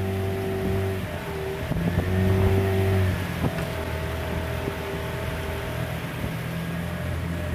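Motorboat engine running steadily at a low, even pitch, with water noise behind it.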